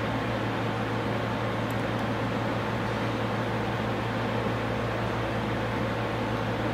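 Background ventilation fan running: a steady low hum with an even hiss that does not change.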